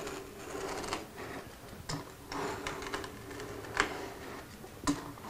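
A hand blade drawn along a straightedge, cutting thin cherry veneer: light scraping with a few sharp ticks, over a faint steady hum.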